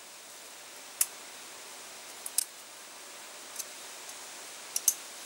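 Scattered sharp, light clicks, some in quick pairs, as the thin steel rails of a piston's oil-control ring are worked out of the ring groove by hand.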